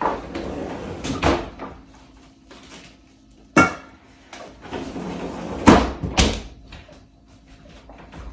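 Kitchen cookware and utensils being handled: two stretches of scraping, each ending in knocks, and one sharp knock with a brief metallic ring about three and a half seconds in.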